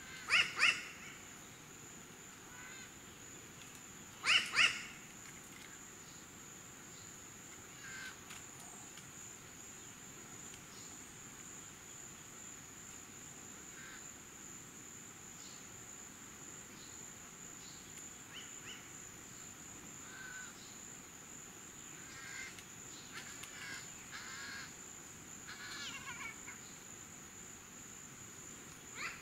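New Caledonian crows calling: two loud double calls near the start and about four seconds in, then softer short calls, more frequent in the last few seconds. A steady high-pitched insect drone runs underneath.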